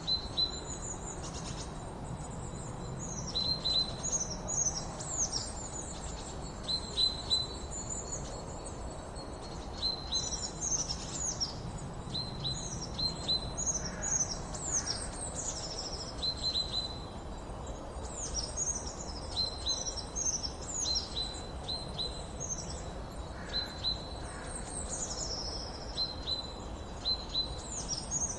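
Wild birds chirping, many short high notes that fall quickly in pitch, in quick runs and overlapping throughout, over a steady background hiss and a thin, steady high tone.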